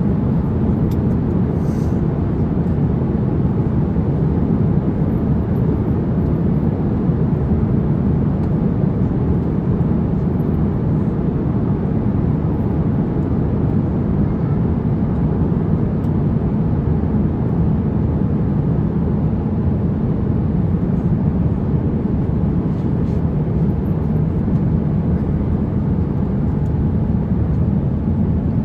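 Steady rumble of engine and airflow noise inside an Airbus A350-900 passenger cabin, with no change in pitch or level.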